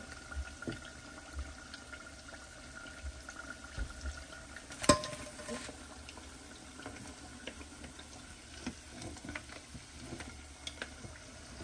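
Hot cooking oil sizzling and crackling in a deep fryer, with many small pops, and one sharp clink about five seconds in.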